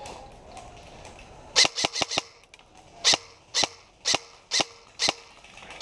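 Airsoft gun shots: a quick run of four sharp cracks, then five more at a steady pace of about two a second.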